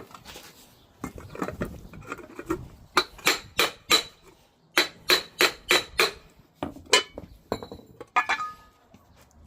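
Sharp metallic taps striking a front crankshaft seal to drive it into a Ford 351 Windsor timing cover, about a dozen in quick runs of four or five, each with a brief ring. The seal is not yet fully seated.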